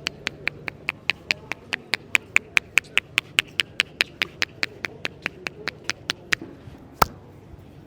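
Rapid, evenly spaced hand slaps of an Indian head massage, about five a second for some six seconds, then one louder sharp crack about seven seconds in.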